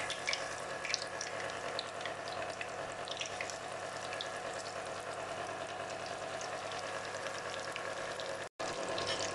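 Breadcrumb-coated chicken drumsticks deep-frying in hot oil in a kadai: a steady sizzle and bubbling with many small crackles. The sound breaks off for a moment near the end.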